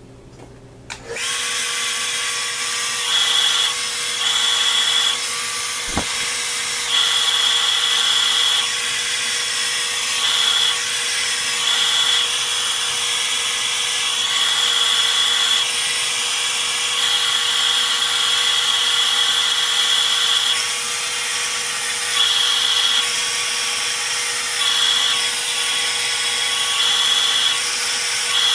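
Hand-held hair blow dryer switched on about a second in and running steadily, a motor whine over rushing air, blowing a section of hair wound on a round brush. Its level rises and dips every few seconds.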